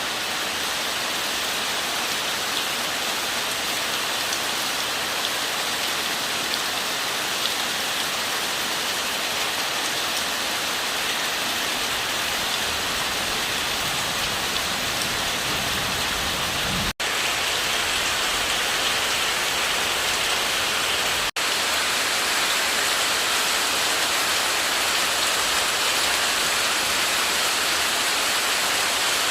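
Steady rain falling, an even hiss of drops. The sound drops out for an instant twice, about two-thirds of the way through.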